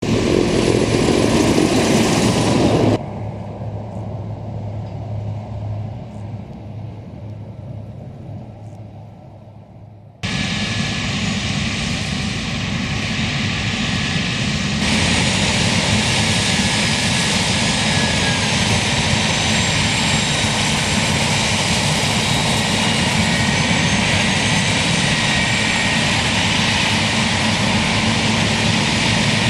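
Heavy farm machinery, combine harvesters and tractors, running steadily while harvesting maize. The sound jumps abruptly in level about 3, 10 and 15 seconds in, fading away between about 3 and 10 seconds, and stays loud and steady from about 15 seconds on.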